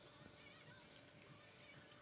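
Near silence: faint room tone with a few faint steady tones in the background.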